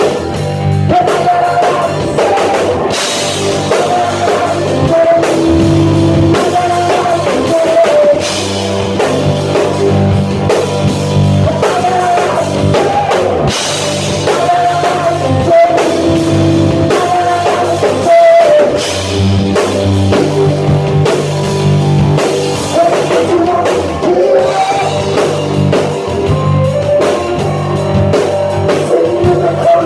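Live rock band playing loudly, with drum kit, guitar and singing.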